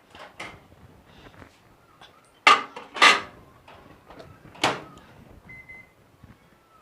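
Household knocks and bangs, like a door or cupboard being handled: three sharp bangs about two and a half, three and four and a half seconds in, among fainter rattling, then a short faint high beep.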